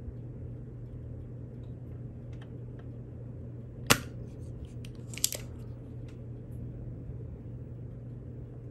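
Spring-loaded desoldering pump (solder sucker) firing once with a sharp snap about four seconds in, sucking molten solder off a stepper-motor pin on the circuit board. A few lighter clicks follow a second or so later, over a steady low hum.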